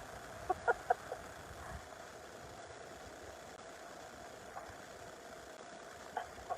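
A steady motor hum, with a few brief high squeaks about half a second to a second in and again near the end.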